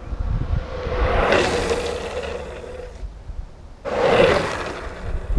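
Premier urethane longboard wheels sliding sideways across asphalt, twice: a rasping hiss that swells about a second in and fades out, then a second slide that starts abruptly nearly four seconds in, the loudest, and dies away. Wind rumbles on the microphone between them.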